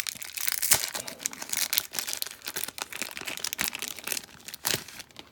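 Plastic packaging crinkling and crackling in irregular bursts as it is handled and unwrapped, dying down near the end.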